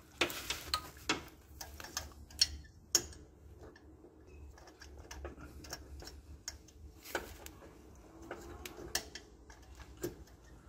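Hand tools clicking and clinking on metal engine parts around the belt pulleys. The sharp, irregular clicks come in a cluster in the first three seconds, with more around seven seconds in.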